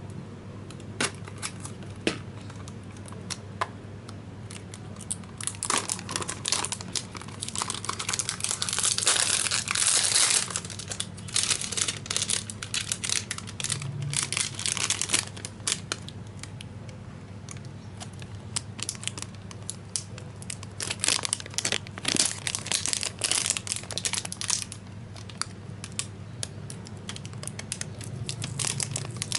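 Product packaging being handled and unwrapped: plastic crinkling and tearing in irregular bursts with scattered clicks, busiest about a third of the way in.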